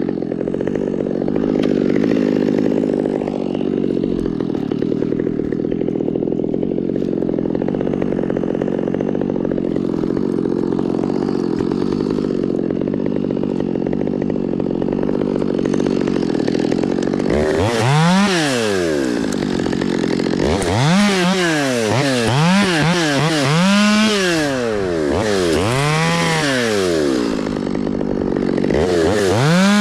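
Gas chainsaw running steadily under load, cutting into pine, for the first half. From a little past halfway its pitch rises and falls again and again as the throttle is opened and let off, ending on a high rev.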